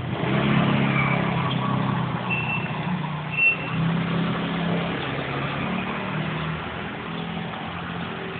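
Street traffic: motor vehicle engines running close by, a low drone that wavers in pitch, with a few short high chirps in the first few seconds.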